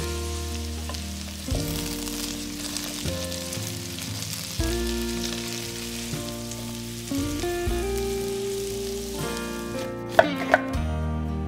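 Food frying in oil in a pan, a steady sizzle, over soft background music. Near the end the sizzling stops and two sharp clicks follow.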